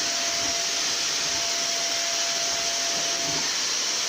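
Vacuum cleaner running steadily while it is pushed around a floor, a constant rushing hiss with a thin steady motor whine that fades about three and a half seconds in.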